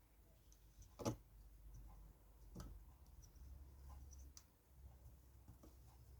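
A few faint, scattered clicks and taps of small iPhone parts being handled and pressed into place, the loudest about a second in.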